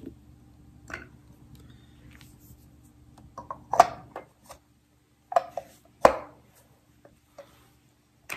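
Hard plastic parts of a mini electric garlic chopper clacking and clicking as they are handled and put together: a handful of sharp knocks, the loudest about six seconds in.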